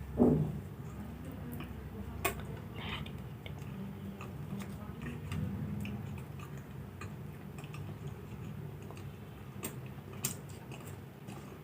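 A person eating puri with aloo dum: chewing with scattered mouth clicks and smacks over a steady low hum, and one louder brief sound just after the start.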